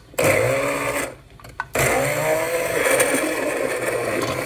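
Immersion blender running in a pot of cooked cranberry and strawberry jam mixture, pulsed to chop the fruit rather than puree it. It runs briefly, stops about a second in, then starts again and keeps going, its motor pitch shifting as the blades churn through the thick fruit.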